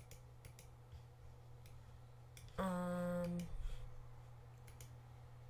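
Computer mouse clicking several times, short sharp ticks over a steady low hum. About two and a half seconds in, a short steady 'mm' is hummed, held for under a second.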